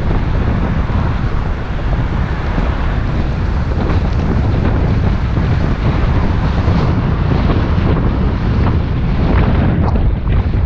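Wind buffeting the microphone: a loud, steady low rumble of wind noise.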